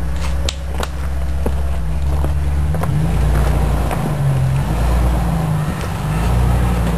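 Jeep Wrangler engine running under load as it crawls forward off-road, the revs rising and falling several times. A couple of sharp clicks in the first second.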